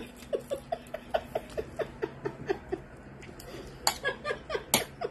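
A person laughing in a quick run of short chuckles, about four a second, with a second burst of laughter near the end.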